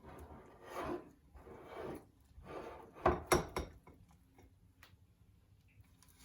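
A utensil scraping and knocking in a bowl while breaking up freshly microwaved scrambled eggs. There are several short scrapes, with two sharp knocks about three seconds in as the loudest part, then only faint ticks.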